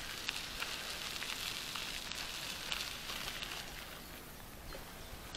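Mountain bike tyres rolling over a gravel path: a steady crunching hiss with scattered small crackles, easing off about four seconds in.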